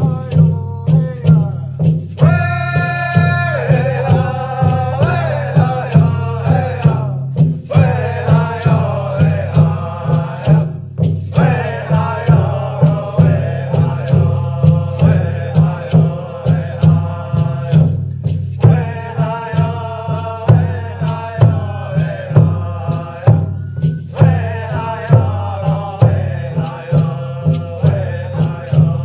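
Background music: chanted singing in repeated phrases over a steady drum beat of about two beats a second.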